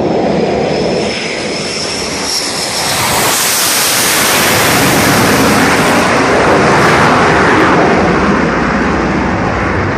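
Jet fighter engine noise: a thin high whine for the first few seconds, then a loud rushing noise that swells to its loudest a little past the middle and eases slightly near the end, as the jet passes.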